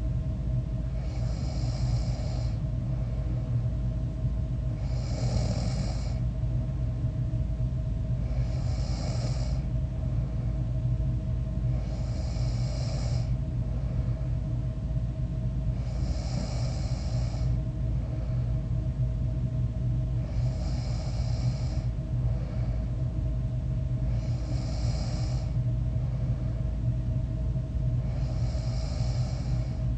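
A sleeping person snoring: a breath about every four seconds, eight in all, over a steady low hum.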